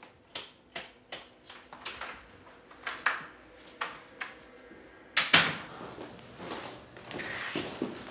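An apartment's front door being handled: a run of sharp clicks and knocks from the lock, handle and footsteps, then a loud bang about five seconds in as the door shuts, followed by a rustle of movement.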